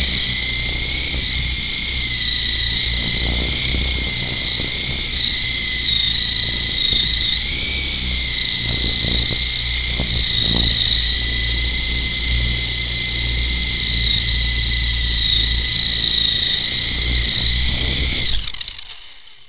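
Whine of the Colco Apache AH-64 RC helicopter's motor and rotor heard from the onboard camera, a steady high-pitched tone over a low rumble of wind buffeting the microphone. Near the end the whine winds down and stops as the helicopter sets down.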